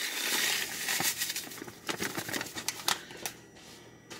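Dry stuffing crumbs pattering from a shaken bag onto a casserole, the bag crinkling, followed by a couple of seconds of scattered light ticks and clicks.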